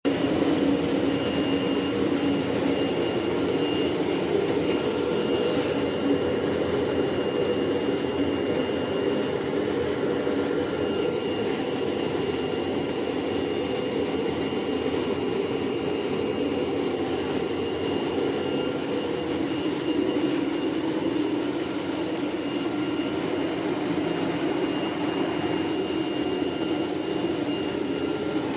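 CNC machine running a cutting job: a steady mechanical noise with a thin high whine on top that drops out briefly now and then.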